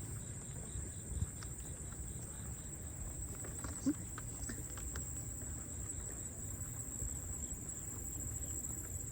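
Steady, high-pitched insect chorus, with footsteps on the trail and a few soft knocks.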